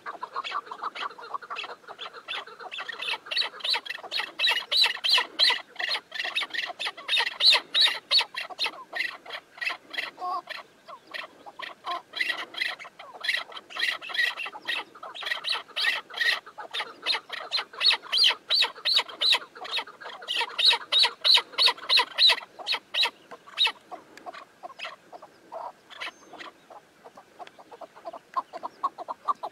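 Chukar partridges calling: long runs of rapid, repeated clucking calls that swell and fade in waves.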